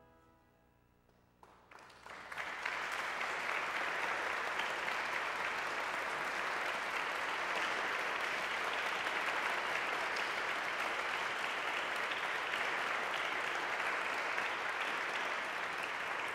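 Audience applauding: a few scattered claps about a second and a half in quickly swell into steady applause.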